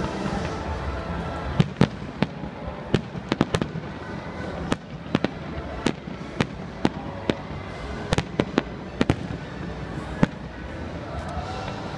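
Fireworks display: aerial shells bursting in an irregular volley of sharp bangs from about a second and a half in until about ten seconds in, over a steady background din.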